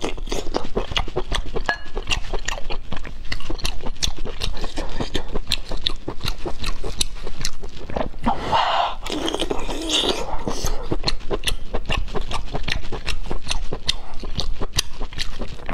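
Close-miked chewing of braised pork intestines: a dense run of rapid wet lip smacks and squelches, with a louder stretch a little past eight seconds in.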